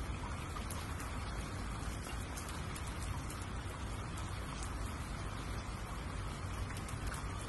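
Steady rain falling, with scattered drops ticking now and then.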